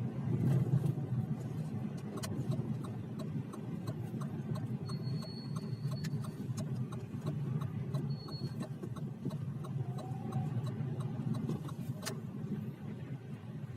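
Steady low road-and-drivetrain rumble of a Lada Vesta on the move, with a fast run of light ticks and a few sharp clicks or knocks. The knocks may be the suspension knock that the car is being recorded for.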